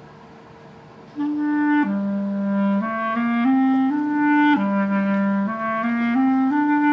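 A clarinet plays a slow melody of held notes that step up and down, starting about a second in.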